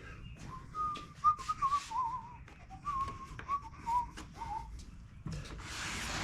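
A person whistling a short, wavering tune, with small clicks of parts and tools being handled. Near the end there is a brief rushing hiss.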